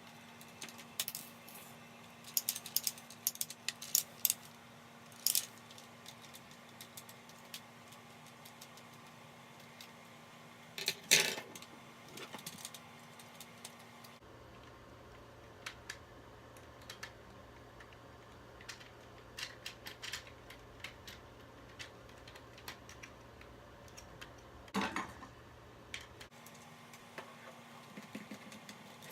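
Scattered clicks and light rattles of small hard plastic and metal parts being handled while a DX Sclash Driver toy belt is taken apart, with a louder cluster of clicks about eleven seconds in.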